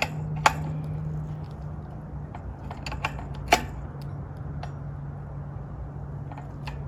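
Metal clicks and clinks of an adjustable wrench on the e-bike's rear axle nut as it is tightened, two sharp clicks standing out about half a second in and about three and a half seconds in. A steady low hum runs underneath.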